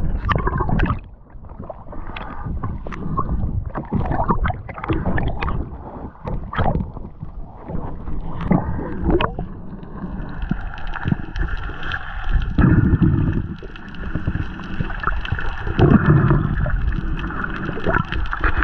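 Seawater splashing and sloshing in irregular strokes, giving way about halfway through to a steadier hum over the water noise.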